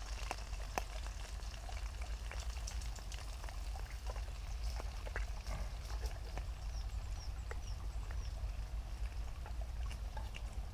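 Wood fire crackling in a Solo Stove Titan wood-burning camp stove: scattered sharp pops and snaps over a steady low rumble. A few short high chirps come about two thirds of the way in.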